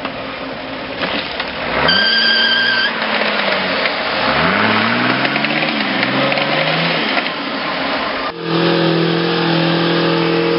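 Small off-road 4x4's engine revving hard in repeated rising and falling surges as it claws up a steep muddy bank, with tyre and mud noise. A brief high steady tone sounds about two seconds in, and after an abrupt change about eight seconds in the engine is held at steady high revs.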